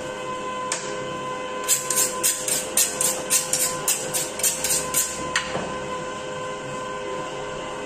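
Butcher's knife being honed on a sharpening steel: a quick, even run of about twenty metallic strokes, about six a second, that starts about two seconds in and stops about five seconds in.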